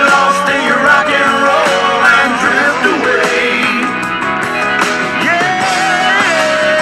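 Rock music with a singer and guitar.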